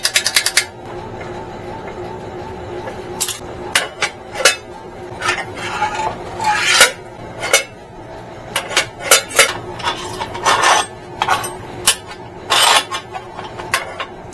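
Irregular clinks, clanks and knocks as a newly unboxed metal cutoff chop saw and its loose parts are handled and set down on concrete, with a quick run of clicks at the start.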